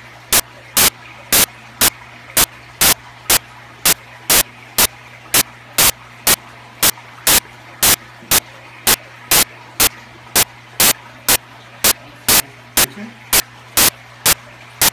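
Loud, sharp clicks at a very even rate of about two a second, over a steady low hum.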